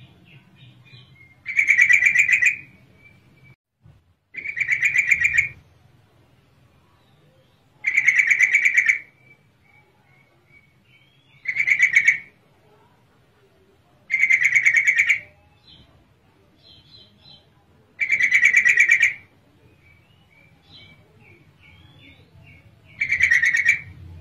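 Female yellow-vented bulbul (trucukan) calling: seven loud, roughly one-second bursts of rapid chattering notes every few seconds, with faint short chirps between them. It is a lure call meant to make other trucukan answer.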